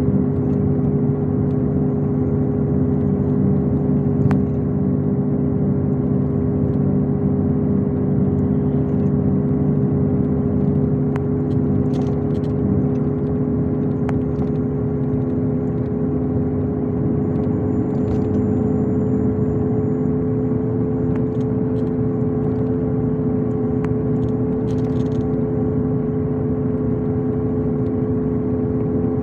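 Inside a MAZ-251 coach cruising at steady speed: engine, drivetrain and tyre noise make a steady drone with a constant whine, and there are a few faint light rattles.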